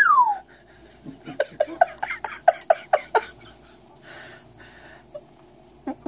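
African grey parrot giving a loud whistle that slides down in pitch, then a quick run of about a dozen short pitched notes, about six a second, lasting some two seconds.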